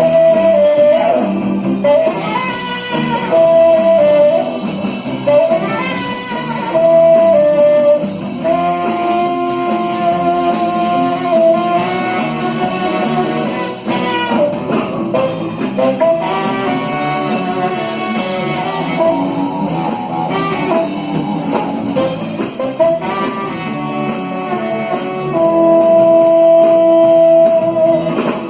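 Live band playing an instrumental passage between sung verses: a melody of held notes over a guitar accompaniment.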